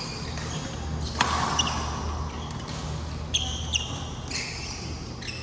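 Badminton play in a hall: one sharp racket strike on the shuttlecock about a second in, then several brief high shoe squeaks on the court floor, over a steady low hum.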